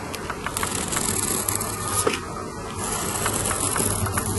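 A light-coloured pencil scratching across black 150-grit sandpaper as it draws, in two long strokes with small ticks between them.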